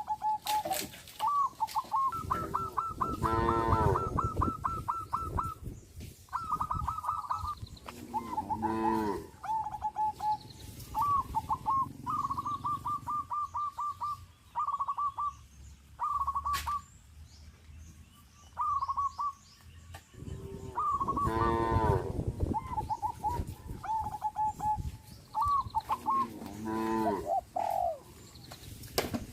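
Cows mooing four times, long low calls, while a dove coos over and over in short trilled phrases.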